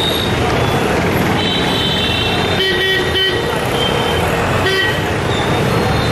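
Street traffic noise with vehicle horns honking several times, the loudest blasts coming a little under halfway through and again later.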